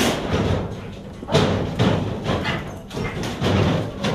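A series of irregular thumps and knocks, about five over a few seconds.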